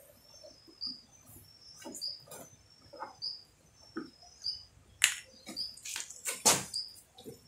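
A small bird chirping over and over, short high chirps about twice a second. Scattered knocks and clatters from a plastic fuel jug being handled, the loudest about five seconds in and again near six and a half seconds.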